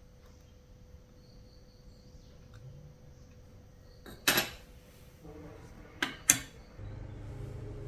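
Three sharp clicks, one about four seconds in and two close together about six seconds in, over a faint steady tone; near the end a low steady hum comes on.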